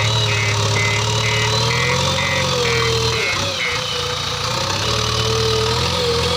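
JCB 3DX backhoe loader's diesel engine running steadily, with a wavering whine above it that dips briefly in the middle. In the first half a series of short beeps comes about twice a second, then stops.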